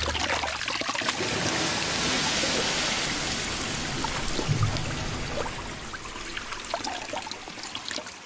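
Water from a tap running into a sink and splashing as it is thrown over the face and head. The splashing is heaviest in the first few seconds and thins out toward the end.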